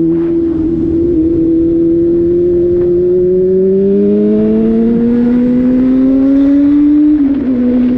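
Motor vehicle engines held at high revs. Their pitch climbs slowly, then falls off briefly about seven seconds in.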